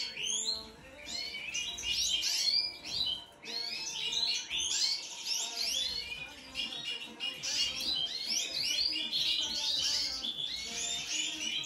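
Cage finches twittering: a rapid, continuous stream of high chirps and trills, easing briefly about a second in and again around three and a half seconds.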